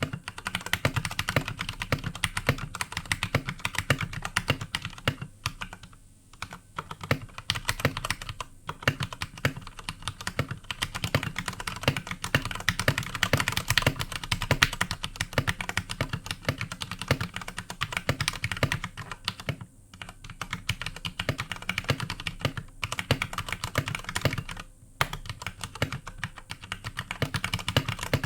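Fast, continuous typing on an iKBC Poker II compact mechanical keyboard with Cherry MX Red linear switches: rapid keystroke clacks, broken by a few short pauses.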